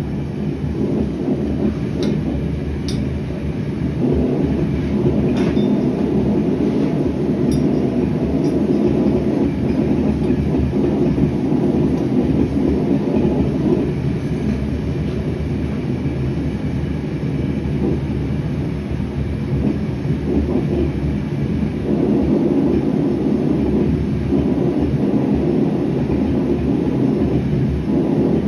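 Gas forge burner running with a steady, loud low roar, with a few faint clicks in the first few seconds.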